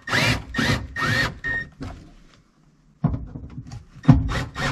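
Power screwdriver or drill running in three quick bursts, its pitch rising and falling with the trigger, driving in the screws that hold a car's interior trim panel. Then a few clicks and knocks of the panel and tool being handled, one of them sharp, about four seconds in.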